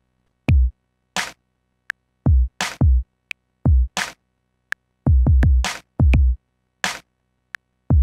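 1010music Blackbox sampler playing a drum pattern from its lo-fi hip hop preset kit: deep kick drums that drop in pitch, bright snare-like hits and short ticks. It starts about half a second in.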